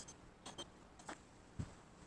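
Faint, scattered light clicks and taps, about four in two seconds, irregularly spaced.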